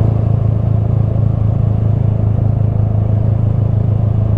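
Honda Grom motorcycle's small single-cylinder engine running steadily under way at an even, low speed, with a constant hum.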